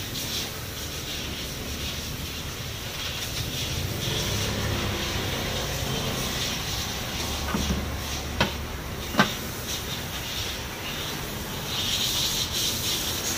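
Steady street traffic noise with rubbing and scraping as a knife works along a pineapple peeled by hand. A little past halfway come two sharp knocks less than a second apart.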